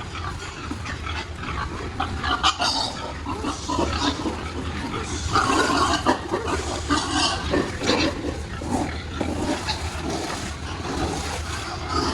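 A barn full of pigs grunting and squealing, with scattered sharp knocks over a steady low hum.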